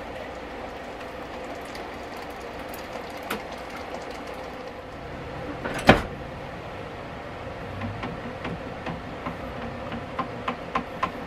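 Hot water poured from a kettle into a plastic pitcher of sugar. A single sharp knock comes about six seconds in, and near the end a spoon clicks against the plastic pitcher as the sugar water is stirred.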